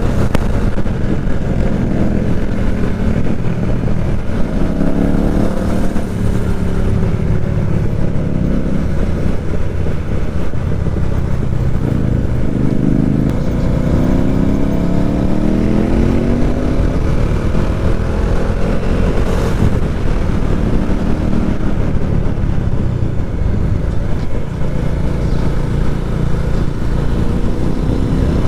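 Motorcycle engine and exhaust under way. The engine note climbs in pitch as it revs up through the gears several times, dropping back between climbs.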